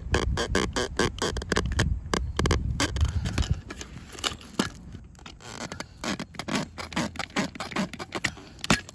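Screwdriver turning screws through small metal brackets into the plastic of a saddlebag filler panel: a run of quick irregular clicks and scraping of metal on plastic, with a low rumble that stops about three and a half seconds in.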